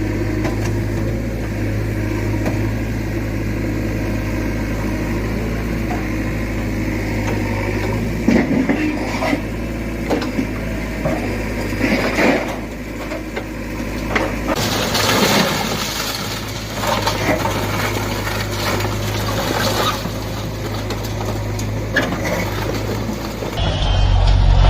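Bulldozer engine running steadily, then from about eight seconds in, repeated crashes and crunching as a house is knocked down.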